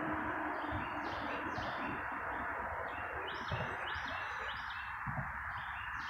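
A songbird calling in series of short, repeated high chirps, over a steady background hiss.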